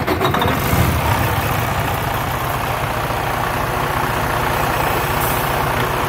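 Freightliner Cascadia semi truck's diesel engine catching, uneven for about the first second, then idling steadily. It started after a 30-amp fuse was pulled and plugged back in, a temporary fix for a no-start.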